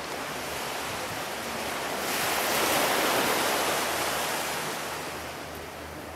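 Sea surf: a wave breaking and washing up the sand, swelling to its loudest about three seconds in and then easing off.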